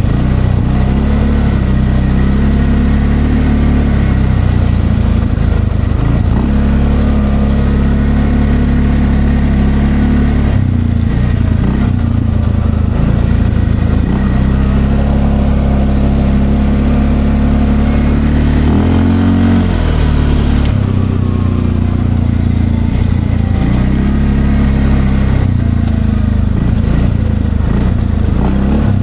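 Linhai Landforce 550L ATV engine running under way, its pitch rising and falling with the throttle. The revs dip and climb back up about two-thirds of the way through.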